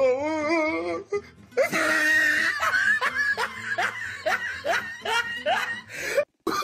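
Comedy background music with a wavering sung vocal, then a long run of rhythmic laughter, about two to three laughs a second. The sound cuts out completely for a moment shortly before the end.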